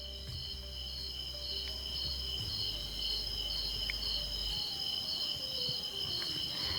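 Night insect chorus of crickets: one steady high trill together with a second, higher chirp that pulses about twice a second.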